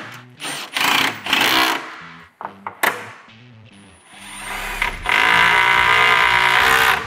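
Cordless Milwaukee M18 impact driver driving screws through a steel wall bracket: a few short bursts in the first two seconds, then one long hammering run from about four seconds in until just before the end.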